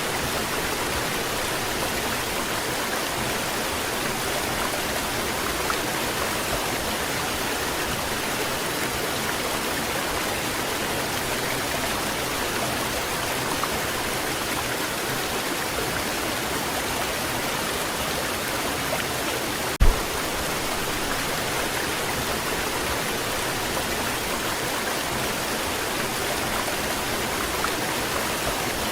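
Waterfall rushing steadily, an even hiss of falling water. About two-thirds of the way through, a single brief low thump breaks through.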